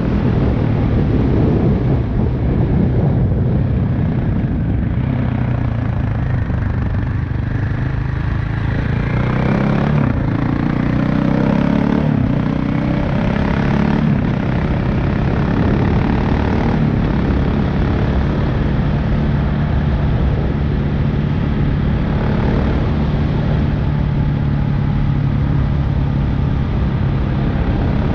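KTM 690 Enduro R's single-cylinder engine and exhaust running under way, heard onboard. The engine note shifts about a third of the way through, then holds steady.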